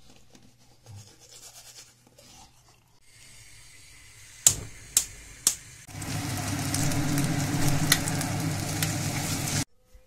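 Eggs frying in hot oil in a non-stick pan, a loud steady sizzle that starts about six seconds in and cuts off suddenly near the end. Before it, faint scrubbing of a toothbrush, then three sharp knocks about half a second apart.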